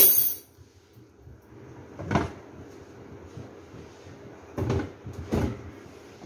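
A heavy stone bowl, used as a weight, is handled on and lifted off an aluminium cooking-pot lid: a brief scraping clatter at the start, then a dull knock about two seconds in and two more near the end.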